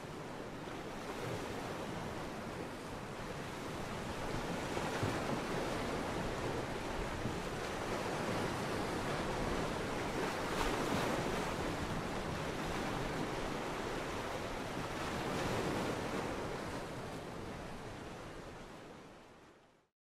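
Ocean surf breaking on a beach: a steady wash of noise that swells and eases about every five seconds, then fades out near the end.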